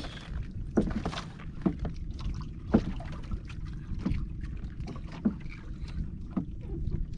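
Water sloshing and plopping against a small fishing boat, with irregular splashes and knocks, over a steady low rumble.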